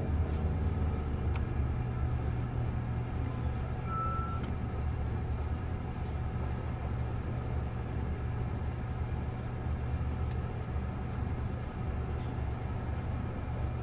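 Low, steady rumble of idling traffic, including a semi truck alongside, heard from inside a stopped car's cabin. A brief faint tone sounds about four seconds in.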